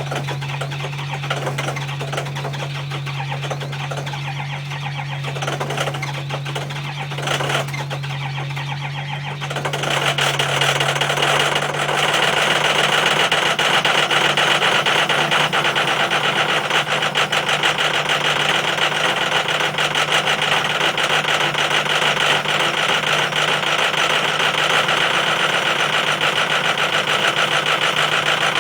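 2005 Ford Power Stroke 6.0-litre V8 turbodiesel on a hard cold start: cranking and stumbling, then catching about ten seconds in and running louder and steadily, rough, with no block heater warmth because its breaker tripped.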